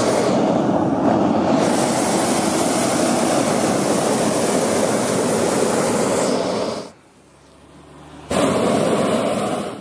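Hot-air balloon propane burner firing: one long blast of about seven seconds, a pause of about a second and a half, then a second, shorter blast. The burns heat the envelope just before lift-off.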